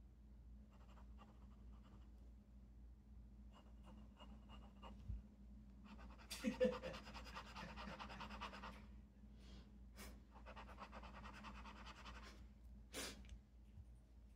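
Glass dip pen scratching across notebook paper in two stretches of quick back-and-forth strokes as an ink swatch is laid down, with a few light clicks of the pen between them.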